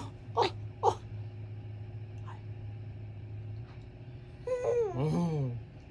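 Baby babbling: a few short squeaky sounds in the first second, then a longer whiny vocal sliding down in pitch near the end, over a steady low hum.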